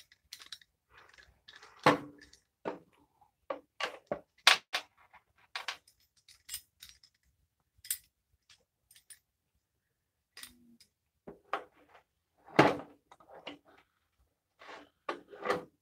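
Metal clamp being fitted and screwed down onto a wooden block on a table saw: irregular clicks, rattles and knocks of the clamp against the wood and the saw table, with a few louder knocks.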